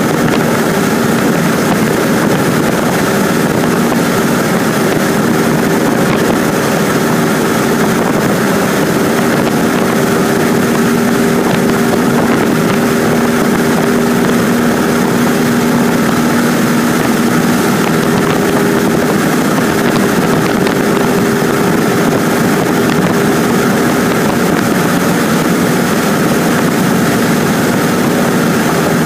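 Cessna 150's four-cylinder Continental O-200 engine and propeller running steadily in cruise, heard inside the cabin: a constant drone with a few held tones under a hiss of air.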